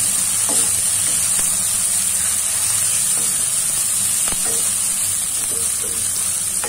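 Chopped tomatoes and green chillies sizzling in hot oil in a karahi, being fried down until tender. A spoon knocks against the pan a few times as the mixture is stirred.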